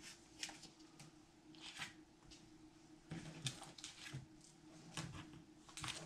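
Comic books in plastic sleeves being handled and set down on a stack: faint, irregular rustling and crinkling of the plastic with soft taps, over a faint steady hum.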